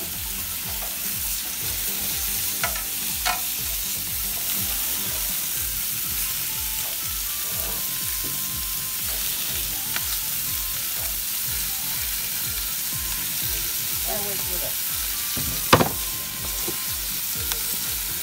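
Meat sizzling on a gas barbecue grill, a steady hiss. A few light clicks, and one sharper knock a little before the end, from metal tongs on the grill.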